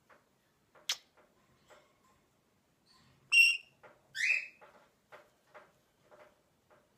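Rainbow lorikeet giving two short shrill calls about a second apart, the second one rising in pitch. A sharp click comes about a second in, and faint soft ticks follow the calls at about two a second.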